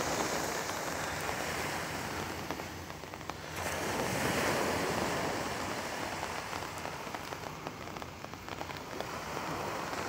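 Steady rain falling and pattering on an open umbrella, with small waves washing onto the sand; the noise swells briefly about four seconds in.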